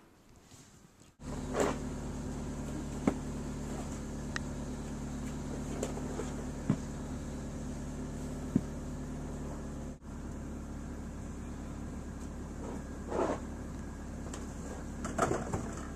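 A steady machine hum with a few constant low tones, starting abruptly about a second in, with scattered clicks and knocks over it.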